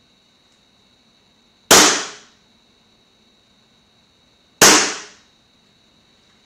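WE XDM 4.5 green gas blowback airsoft pistol firing two shots about three seconds apart, each a sharp crack that fades over about half a second.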